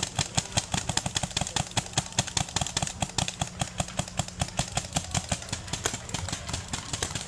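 Paintball markers firing rapid streams of shots, many pops a second, uneven as several guns fire at once.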